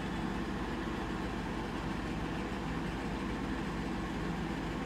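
Steady low mechanical hum with a constant background hiss, unchanging throughout.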